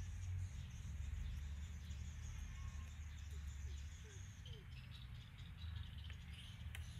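Outdoor ambience of insects chirring steadily over a low, steady rumble, with faint clicks and a few short squeaks of cutlery working in a frying pan in the second half.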